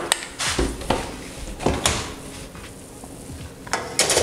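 Scattered knocks and clunks as a springform cake tin is carried to a built-in wall oven, then a denser cluster of clatter near the end as the oven door is opened to put the cake in.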